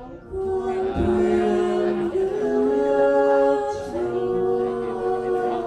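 A man and a woman singing a slow song together into microphones, holding long notes, with a strummed acoustic guitar underneath.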